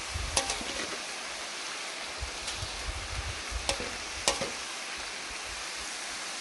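Tortilla chips sizzling as they deep-fry in very hot oil in a steel disco pan, a steady hiss. A slotted metal skimmer stirs them and clinks sharply against the pan three times in the first half.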